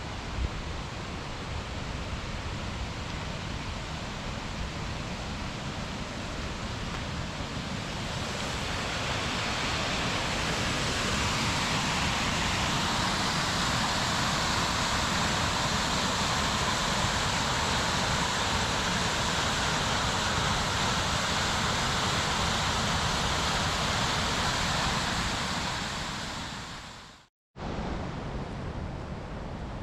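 Rushing water of a waterfall: a steady roar that grows louder about eight seconds in, then fades and cuts out briefly near the end.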